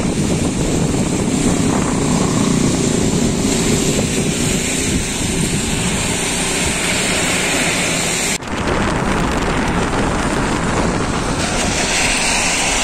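Steady rush of wind and road noise coming in through an open car window while driving on wet roads in the rain. The sound drops out for an instant about eight seconds in.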